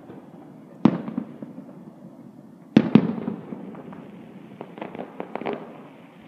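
Aerial firework shells bursting: two sharp booms about two seconds apart, each trailing off in echo, then a quick run of smaller pops about two-thirds of the way through.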